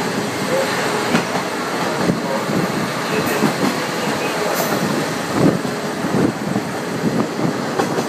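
The Kazekko diesel railcar running along the Karasuyama Line, heard from on board: a steady rail rumble with wheels clattering irregularly over the track.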